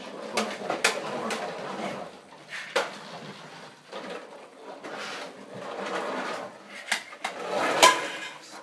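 Plastic toy trucks knocking and clattering as they are pushed and rolled over a wooden floor, with a string of sharp knocks and the loudest clack near the end.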